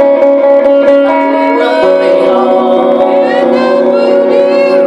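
Guitar music: held chords ringing steadily, with a wavering higher melody line over them in the second half.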